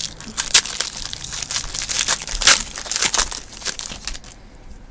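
A trading-card pack's wrapper being torn open and crinkled: irregular crackling that stops about four seconds in.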